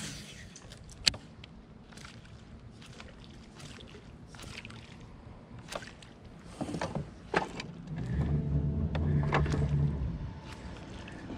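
Small fishing boat on a pond, with scattered sharp clicks and knocks of gear being handled aboard. A low steady hum rises about eight seconds in and fades about two seconds later.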